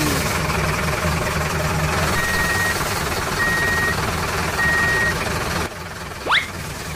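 Truck engine running with three evenly spaced reversing beeps, each about half a second long. The sound cuts off suddenly near the end, and a quick rising whistle-like 'boing' sound effect follows.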